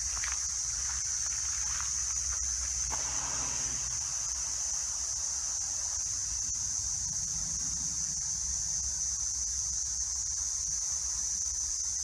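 Steady high-pitched chorus of insects, shrilling without a break, over a low rumble with a few faint ticks.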